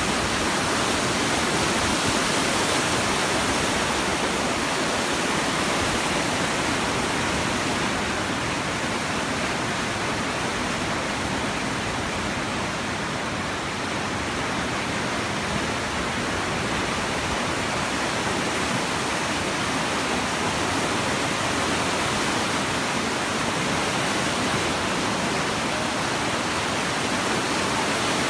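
Flood-swollen river water surging and churning through a mill race past a wooden water wheel: a steady, loud rush of white water, a little softer about halfway through.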